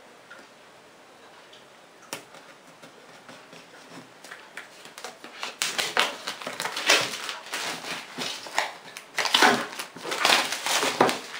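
Clear plastic shrink wrap on a cardboard product box being slit with a knife, a few small clicks, then pulled and torn off the box in loud crinkling rustles from about halfway in.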